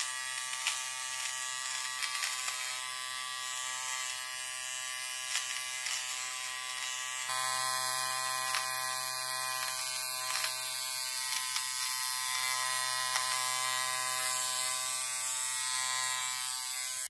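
Philips Series 3000 battery-powered nose trimmer running with a steady electric buzz; it gets a little louder about seven seconds in.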